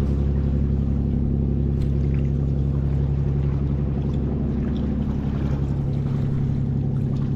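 Motorboat engine running steadily: a constant low hum with no change in pitch.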